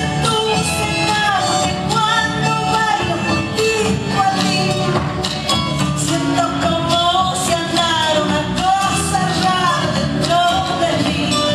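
Argentine folk song: a voice singing a melody over continuous instrumental accompaniment.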